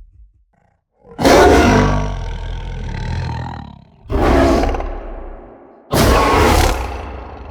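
Indoraptor roar sound effect: after a second of silence, three loud, rough roars begin about a second, four seconds and six seconds in. The first is the longest and fades slowly.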